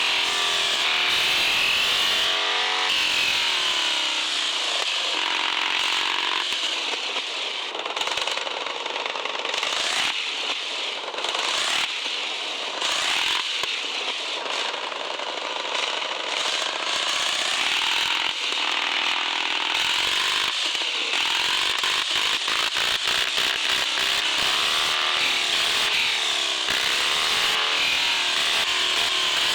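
Radio-controlled 4x4 car's small electric motor and geared drivetrain whining continuously, the pitch rising and falling as the throttle is worked, with grinding and clicking from the gears and wheels.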